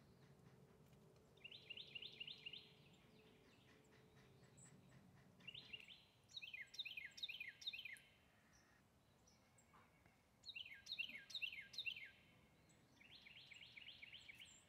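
Songbirds calling faintly: four bursts of quick, repeated downward-slurred notes, separated by pauses.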